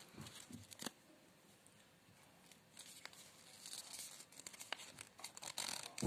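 Origami paper rustling and crinkling as it is folded and creased by hand: a few sharp crackles at first, a pause, then a stretch of faint, busy rustling from about halfway through.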